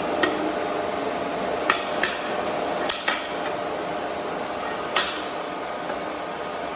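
About six sharp metallic knocks at irregular intervals, typical of steel workpieces being handled and set down on a metal welding table, over a steady hum of a cooling fan.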